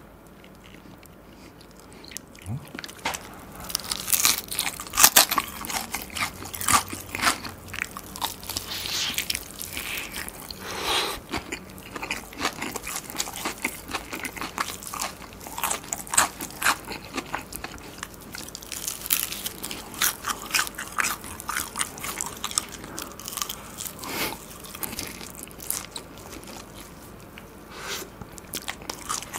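Biting into and chewing crispy Korean market-style fried chicken, the fried coating crunching with many sharp crackles. The crunching starts about three seconds in, after a quiet start.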